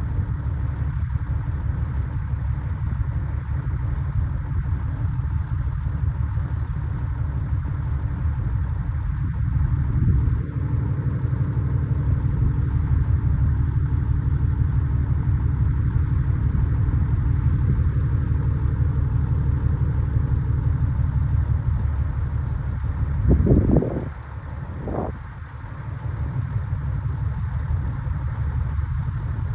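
Heavy diesel engine of construction equipment running steadily under load. It swells briefly about ten seconds in, surges sharply about three-quarters of the way through, then drops quieter for a couple of seconds before settling back.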